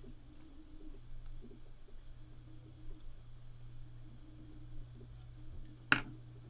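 A single sharp click about six seconds in, over a faint steady hum and a few small taps.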